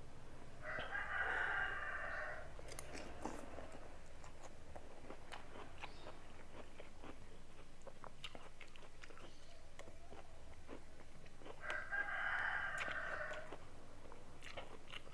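A rooster crowing twice, about ten seconds apart, each crow lasting under two seconds. Between the crows, small crunching and mouth sounds from chewing crisp mango and jicama rujak.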